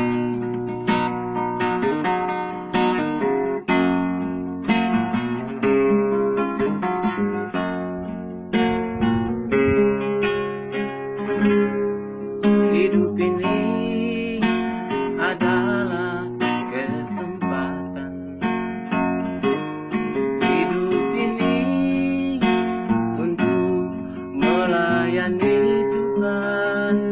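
Acoustic guitar playing an instrumental song introduction, strumming and picking chords with a steady rhythm.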